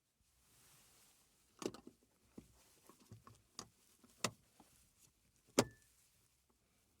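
Plastic clicks and knocks from a car's ceiling grab handles and their trim being worked by hand. There is a string of small clicks, with three sharper knocks, the loudest near the end.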